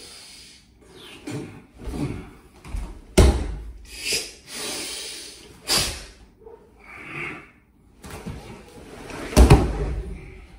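Bodies and bare feet hitting a training mat during a jiu-jitsu throw demonstration: several sharp thuds with gi fabric rustling and scuffing between them, the loudest thud about nine seconds in as the partner is taken down onto the mat.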